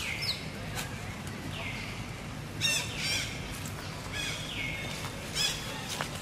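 High-pitched animal calls: a falling call, about half a second long, repeats every second or two, with sharper squeaky calls in between, the loudest nearly three seconds in and again about five seconds in.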